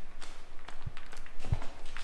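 Irregular light taps and knocks from work on a tire bead as lube is spread on it with a makeshift applicator, with one heavier thump about one and a half seconds in.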